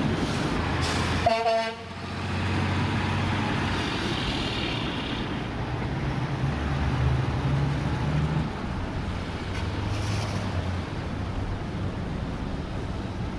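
Diesel train horn sounding one short blast about a second in, cut off abruptly after about half a second. Then a low steady diesel rumble with some wind hiss.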